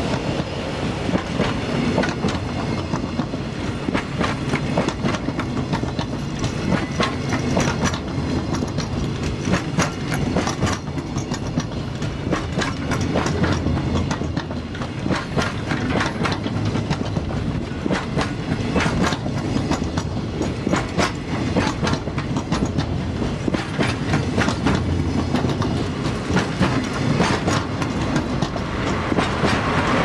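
Freight train of container wagons rolling past at close range: a continuous rumble with rapid clickety-clack of wheels over rail joints. Near the end the diesel engine of the DD51 locomotive at the tail of the train grows louder as it comes by.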